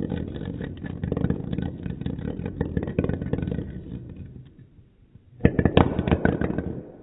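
3D-printed plastic dreidel spinning on a wooden floor, its tip rattling in a dense run of clicks that fades as it slows. About five and a half seconds in it wobbles and topples, clattering loudly against the wood for about a second.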